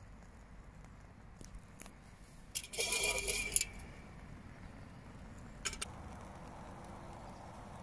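Metal clinking and rattling for about a second near three seconds in, then two short clicks just before six seconds: a metal cup being handled and set down on a folding Esbit pocket stove over burning fuel tablets.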